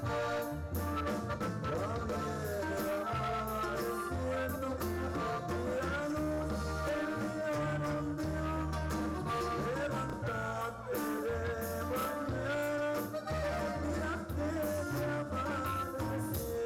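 Live norteño band music, with a bajo sexto, bass and drums playing steadily under a man singing into a microphone.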